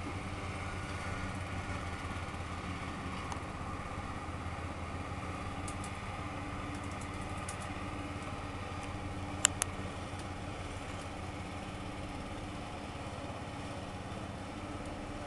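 Red zero-turn riding mower's engine running steadily at a distance as it crosses the yard. Two sharp clicks in quick succession about two-thirds of the way in.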